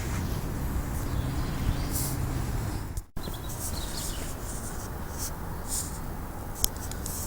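Outdoor garden ambience: a steady low rumble with faint, short bird calls. The sound cuts out for a moment about three seconds in.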